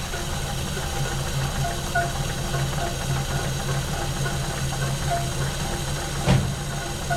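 1950 Pontiac Silver Streak engine idling steadily on its freshly rebuilt carburetor, with one sharp knock about six seconds in.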